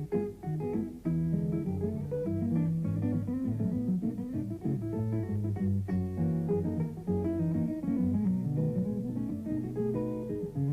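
Background music led by guitar, with quick plucked notes over a bass line.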